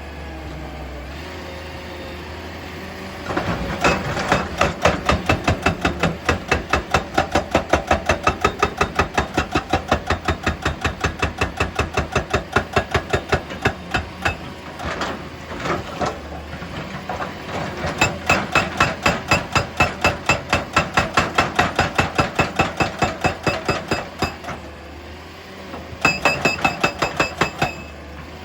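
Rapid, evenly spaced mechanical hammer blows, about five a second, in runs of several seconds with short pauses, over a steady engine hum.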